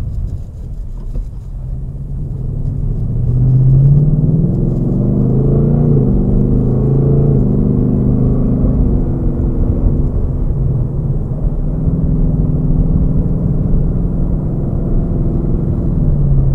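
2018 Ford Mustang GT's 5.0 L V8 heard from inside the cabin, pulling away in Sport Plus mode. The engine note picks up about three seconds in, its pitch shifts through a few quick automatic upshifts, then it settles into a steady cruise.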